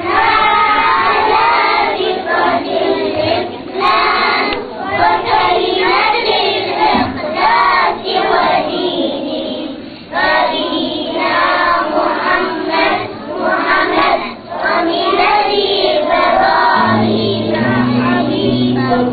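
A group of young children singing together in unison, phrase after phrase with short breaths between.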